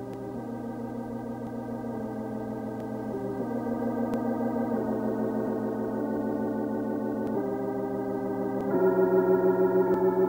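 Organ music accompanying the film: slow, sustained chords that change every second or two, with a fast tremolo pulse. It grows louder on a higher chord about nine seconds in.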